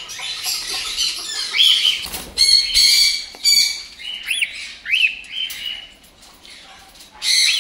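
Cockatiel chicks squawking, a run of harsh screechy calls, then a few short rising-and-falling chirps before it goes quieter.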